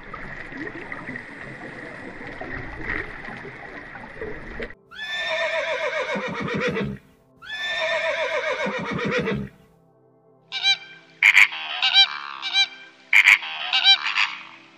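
A steady hiss for the first few seconds, then a horse whinnying twice, each whinny about two seconds long and falling in pitch. Then flamingos call in quick bunches of short, sharp honks.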